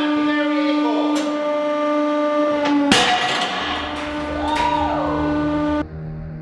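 Hydraulic press running with a steady pitched tone as it closes on a hardened steel bearing ball, which bursts with one sharp, loud crack about three seconds in; the press tone carries on afterwards.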